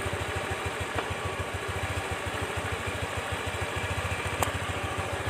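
Freshly rebuilt Honda Dio scooter's single-cylinder four-stroke engine idling with a steady, even beat, running smoothly on its first start after the rebuild, with a light click about four seconds in.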